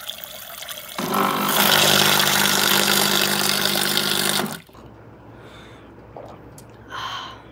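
Nescafé Red Cup drink machine dispensing water into a glass: a steady pump hum with the rush of the pouring stream, starting about a second in and cutting off suddenly about three and a half seconds later.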